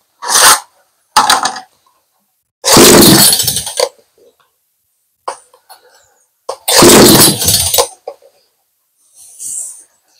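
BU-KO chainsaw being pull-started with its chain brake on: four short, loud pulls in the first eight seconds, the engine not catching and running. A fainter hiss near the end.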